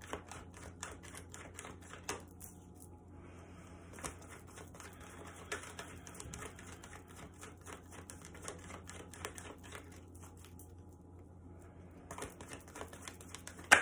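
A deck of oracle cards being shuffled by hand: a run of quick, light card clicks and flicks. It thins out for a couple of seconds near the end, then a single sharp snap.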